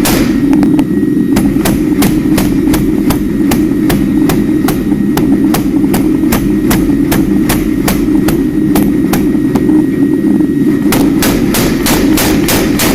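Hammer blows on steel at a steady rhythm, about three a second, over a continuous low drone; the blows ring brighter near the end.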